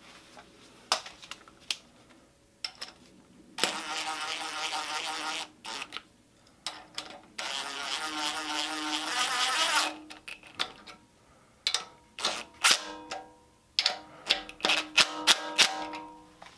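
Cordless drill driving bolts into an engine's oil filter relocation block with a socket: two runs of motor whine, the second getting louder toward its end, then a series of sharp clicks near the end.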